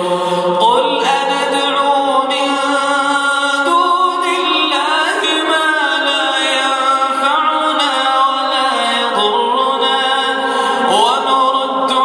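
A man reciting the Quran in the melodic chanted style of tajweed, unaccompanied, holding long notes that glide slowly between pitches.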